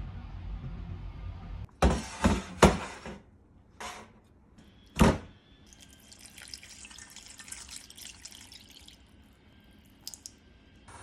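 Kitchen-sink sounds: a few sharp thunks of things being set down, three close together about two seconds in and a louder one about five seconds in, then a stretch of water running and dripping in the sink.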